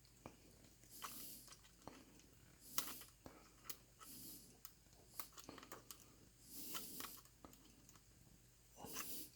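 Faint clicks and scraping of forged steel plier jaws gripping and twisting two copper wires together, with several short hissy rustles between the clicks.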